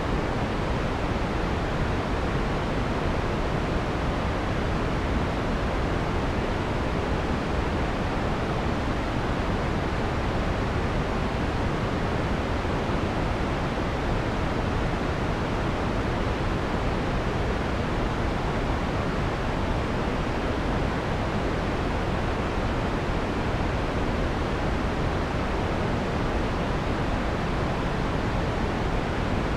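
Steady synthesized noise from a white noise generator, filtered to take out the harsh high frequencies: an even, soft hiss weighted toward the lows, with no change in level or colour.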